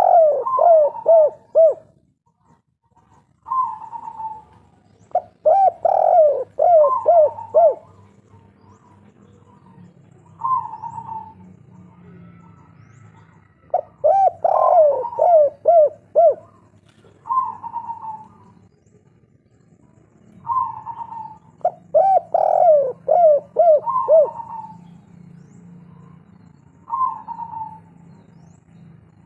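Spotted dove (tekukur) cooing its 'kuk 3' song. There are four phrases, each a quick run of falling notes followed by a few separate coos, with pauses of several seconds between phrases.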